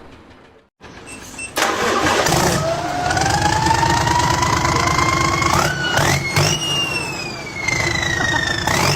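A motor revving under a noisy running sound: its whine climbs steadily for a few seconds, jumps higher about six seconds in, then slowly falls away.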